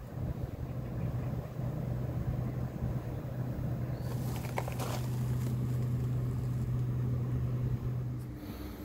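ThermoTec 12 kW air source heat pump running, really quiet: a steady low hum with the fan's air noise, which fades shortly before the end.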